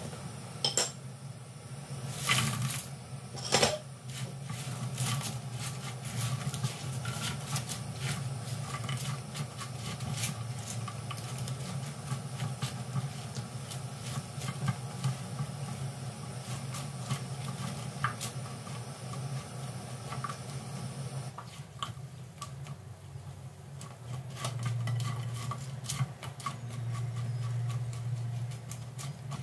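Banana turon frying in oil and melted sugar in a pan: steady sizzling and crackling, with tongs and a spatula knocking and scraping against the pan, three louder knocks in the first few seconds. A steady low hum runs underneath.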